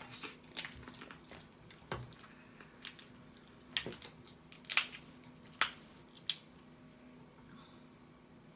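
Close-miked eating of lobster and crab: a string of sharp, wet mouth smacks and clicks, about eight in the first six and a half seconds, then only faint sounds.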